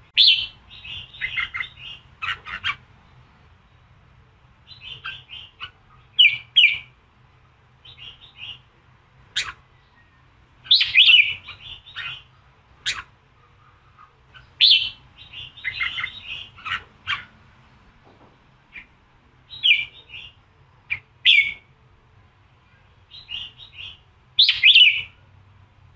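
Red-whiskered bulbul (chào mào) singing short, loud, chirping phrases again and again, a few seconds apart, with a few sharp single notes between them. This is the bold 'giọng kình' song used to provoke captive male bulbuls into singing.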